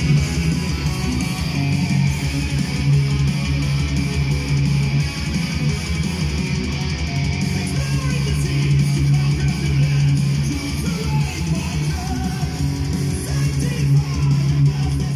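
Guitar-driven rock music playing at a steady, fairly loud level through a Kenwood A-B3 mini hi-fi system's coaxial speakers.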